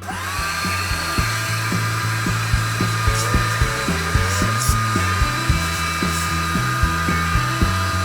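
A small electric power tool's motor spins up with a rising whine and then runs steadily at a high pitch. Background music with a stepping bass line and a steady beat plays under it.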